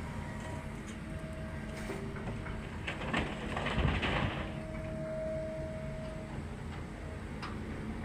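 Excavator running with a steady low mechanical rumble and faint held tones, with a louder, rougher burst of noise about three seconds in that lasts a second or so.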